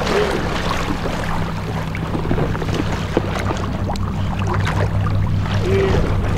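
A small motor's steady low hum runs throughout, with light splashing and sloshing of water underneath.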